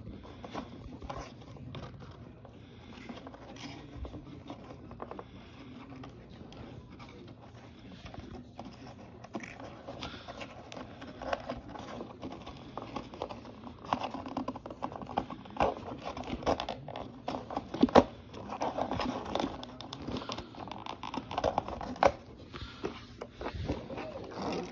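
Cardboard toy packaging being handled and pulled apart: irregular scraping, scratching and crinkling with scattered sharp clicks, busier and louder in the second half, with one sharp snap near the middle of that stretch.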